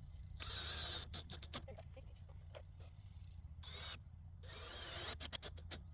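Power drill running in three short bursts with a whine in each, then a quick run of sharp clicks about five seconds in.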